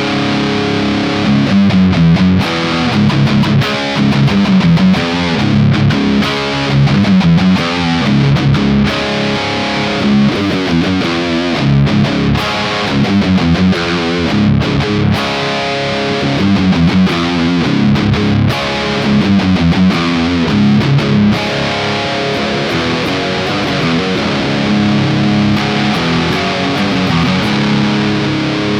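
ESP LTD EC-401 electric guitar with EMG 81/60 active humbuckers, played through a high-gain distorted amp setting: heavy rock/metal riffs and chords, with more sustained, ringing chords over the last several seconds.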